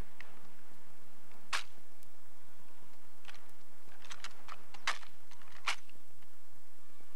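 M1 Garand drill rifles being spun, slapped into the hands and caught, giving sharp clacks of hands and wood and metal on the rifles: one about a second and a half in, then a quick run of several between about three and six seconds in, the loudest near five seconds.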